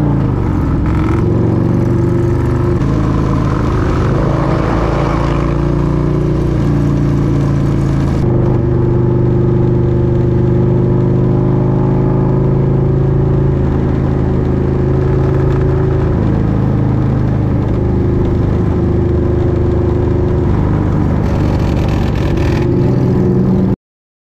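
Motorcycle engine running under way at road speed, heard from on board the bike; its note holds steady and shifts in steps a few times as the speed changes. The sound cuts off suddenly just before the end.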